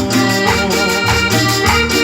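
Live cumbia band playing an instrumental passage with a steady beat.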